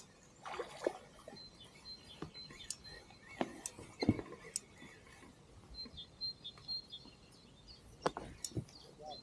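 Quiet open-air sound with a handful of short light knocks and clicks scattered through it, the strongest about four seconds in, and a faint high thin tone that comes and goes.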